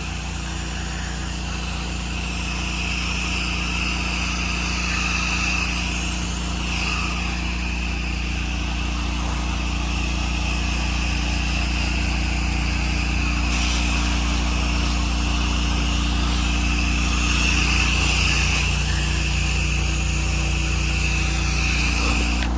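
8 GPM pressure washer's engine running steadily while the wand sprays a chemical soak onto house siding, downstreaming through a 2.1 injector. The spray gives a continuous hiss that swells and fades as the spray moves.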